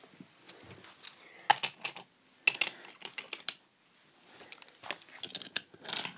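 Light, irregular wooden clicks and clacks from toy trains and wooden track being handled and pushed along, in a few short clusters with a brief pause in the middle.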